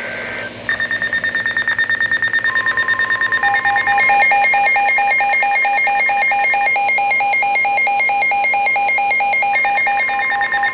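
NOAA Weather Radio Severe Thunderstorm Warning alert: weather alert receivers beep in a rapid electronic pulsing alarm, and the broadcast's steady 1050 Hz warning tone comes in about two and a half seconds in. A second pulsing beep joins about a second later.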